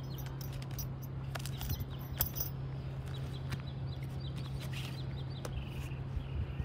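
Scattered light clicks and handling noise as the straps on a rolled-up inflatable tent are unfastened, over a steady low hum, with faint high chirps of birds.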